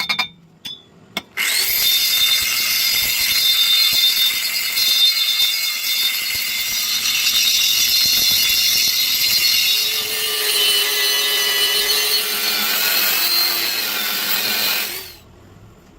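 Angle grinder spinning up and grinding down a weld on steel square tubing: a loud, steady, hissy grinding noise with a motor whine, stopping abruptly after about thirteen seconds.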